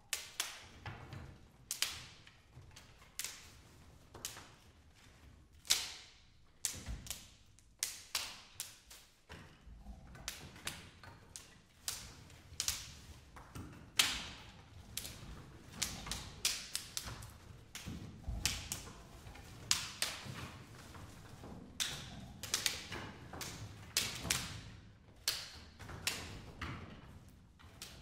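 Dry wooden sticks and twigs struck and broken by hand: irregular sharp cracks and clicks, several a second, with quieter rustling between them.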